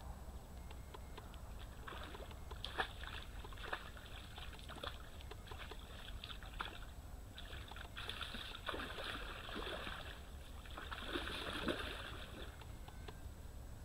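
Hooked carp splashing and sloshing at the surface close to the bank as it is played on a float rod, with short clicks in the first seconds and two longer bursts of splashing past the middle and near the end.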